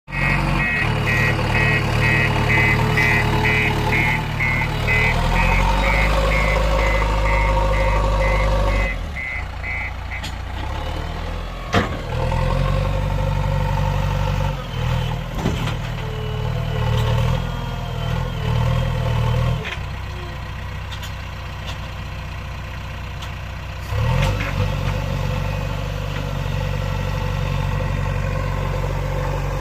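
Diesel engine of a JCB 3DX backhoe loader working, its load rising and easing in stages as it digs and loads. A reversing alarm beeps about twice a second for the first nine seconds, and there is a single sharp knock near twelve seconds.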